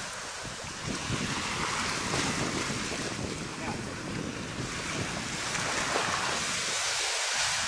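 Small sea waves washing onto a sandy beach, with wind buffeting the microphone.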